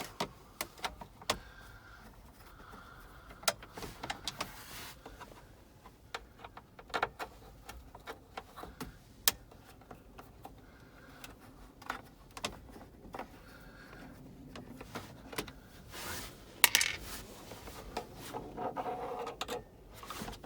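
Scattered clicks, rattles and short scraping sounds from tools taking screws out of the plastic glove box cover in a pickup's dashboard. There is a louder clatter about three quarters of the way through.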